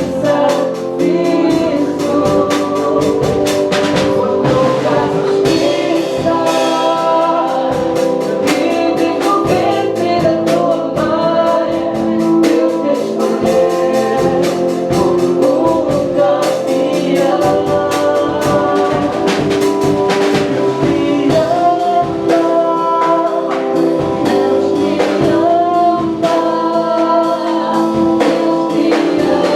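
Band song with a lead singer over a drum kit and other instruments, keeping a steady beat.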